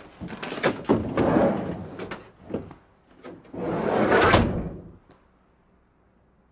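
A car door handled: latch clicks and movement, then the door shut with a heavy thud about four seconds in.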